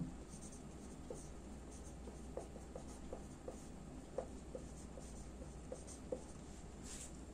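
Felt-tip whiteboard marker writing on a whiteboard: a string of faint, short squeaks and taps as the strokes of an equation are drawn, thinning out about six seconds in.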